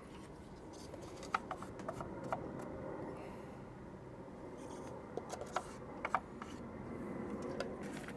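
Plastic party cups and an epoxy resin container handled while resin is poured out for a 2-to-1 mix: light clicks, taps and rustles over a steady background hum.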